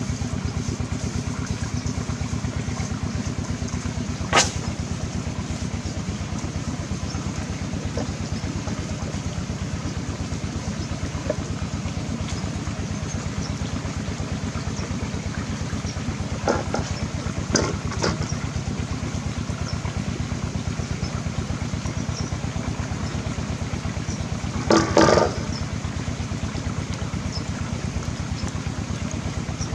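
A steady low engine hum, even and unchanging. Over it come a few sharp clinks of a knife against a steel mixing bowl, the loudest near the end.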